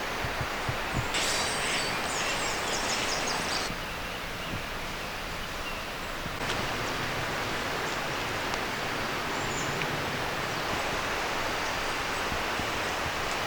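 Steady outdoor ambient noise without music. It shifts abruptly about a second, four seconds and six and a half seconds in, with brief rustling crackles between about one and four seconds in.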